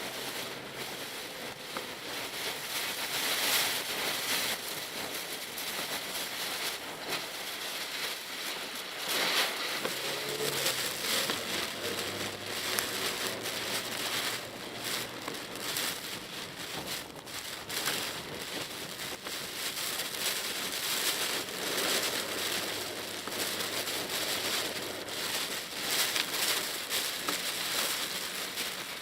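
Typhoon rain hitting a Mitsubishi Pajero Mini's roof and windshield, heard from inside the cabin as a dense hiss of many small drop impacts that swells louder every few seconds. The car's engine runs faintly underneath.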